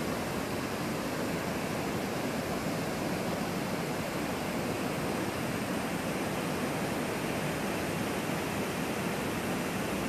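Multi-tiered forest waterfall cascading over rock ledges into a pool: a steady, unbroken rush of falling water.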